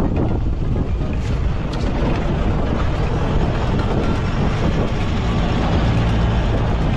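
Campfire burning with a steady low rumble and a few faint crackles.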